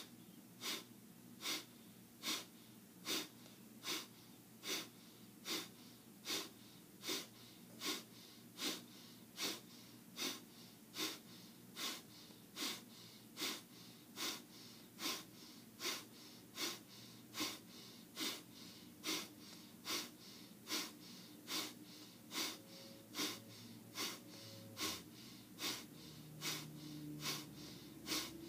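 A person doing a quick out-breath exercise: a steady train of short, forceful exhalations through the nose, a little more than one a second, with the in-breaths left passive.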